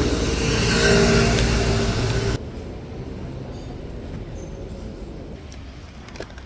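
Loud rumble of a train, as heard riding or standing by a metro, with a few steady tones in it. It cuts off abruptly about two and a half seconds in, leaving quieter steady background noise with faint clicks.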